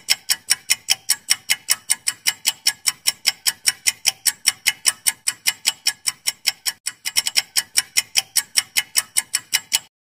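Quiz timer sound effect: fast, even clock-like ticks, about five a second, cutting off near the end.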